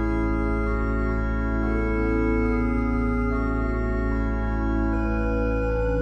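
Organ playing slow, held chords over a deep sustained bass note, the chords changing every second or two.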